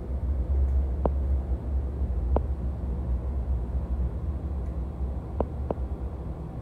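Steady low rumble of an NJ Transit Multilevel passenger coach running at speed, heard from inside the cabin, with a few sharp clicks scattered through it.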